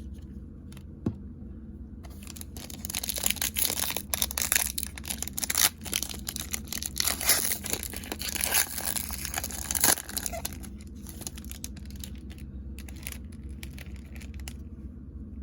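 Trading-card pack wrapper being torn open and crinkled, a dense crackling from about two seconds in until about ten seconds in, followed by quieter handling of the cards.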